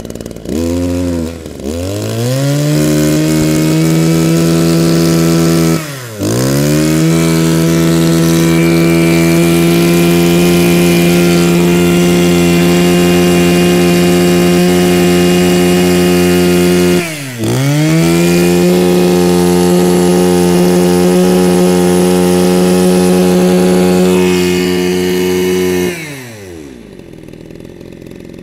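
Mitsubishi TL26 26cc two-stroke brush cutter engine revved from idle to full throttle and held there, three runs of several seconds each. The pitch drops sharply and climbs straight back between runs, then falls away to idle near the end.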